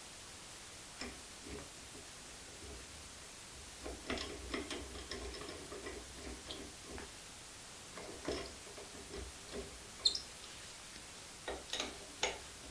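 Scattered light clicks and small knocks as the front wheel, its axle bolt and hand tools are fitted back onto a powered wheelchair's caster fork, with a busier cluster of clicking about four seconds in.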